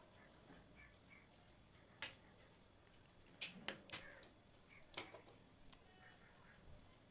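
Near silence broken by a few sharp clicks from marker pens being handled, capped and put down: one click about two seconds in, a quick run of three at about three and a half seconds, and another at five seconds.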